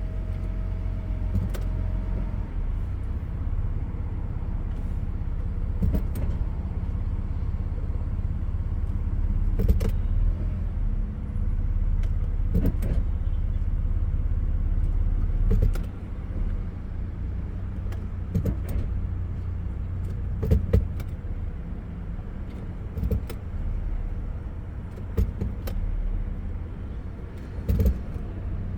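1997 Lexus LX 450's 4.5-litre inline-six idling steadily, with a sharp clunk about every two to three seconds, about ten in all, as the automatic transmission is shifted between reverse and drive.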